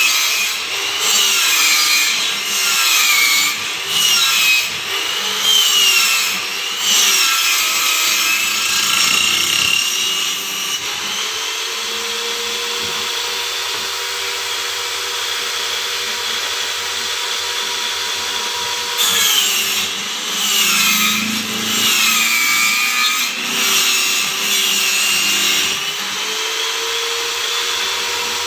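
Table saw ripping long wooden strips faced with HPL laminate. The blade's whine dips in pitch and recovers over and over while it is cutting for about the first ten seconds and again later on. In between and near the end it runs freely at a steady pitch.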